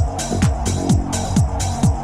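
Electronic dance music: a four-on-the-floor kick drum about twice a second, each kick falling in pitch, with hi-hat hits between the kicks over a steady bass line.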